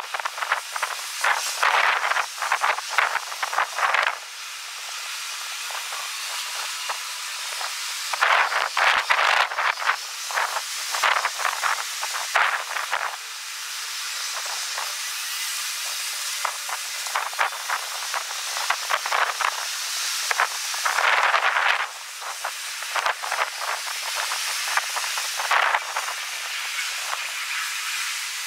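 Strong wind rushing over the microphone as a steady hiss, with louder crackling gusts in the first few seconds, again around ten seconds in, and briefly about twenty-one seconds in.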